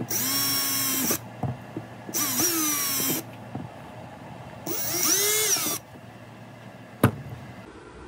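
Cordless drill with a twist bit boring the marked holes in a plastic equipment case, run in three short bursts of about a second each, its motor whine rising as it spins up and dropping as it is let off. A single sharp click comes about seven seconds in.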